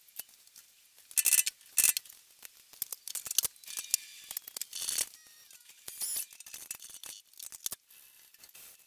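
Scattered metallic clicks and clinks of a steel bar being set in a milling-machine vise and tooling being handled on the mill, a few of them with a short ringing tone.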